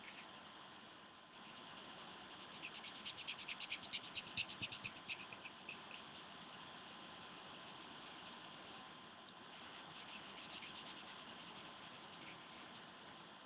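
Black felt-tip pen scribbling quickly back and forth on paper, a fast run of scratchy strokes, louder from about a second in to five seconds and again near ten seconds. The pen is running out of ink.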